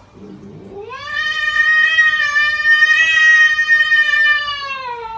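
One long, drawn-out animal call from a pet: it rises in pitch about a second in, holds steady for about four seconds, then sinks in pitch near the end.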